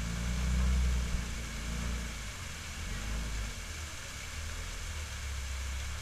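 Jeep engine running at low speed as it crawls up a rocky waterfall ledge, growing louder for a moment in the first two seconds and then settling to a steady rumble. Falling water splashes behind it.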